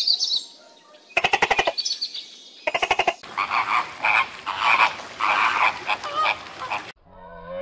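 Frogs croaking: short rattling croaks, then from about three seconds in a denser chorus of repeated calls that cuts off suddenly near the end.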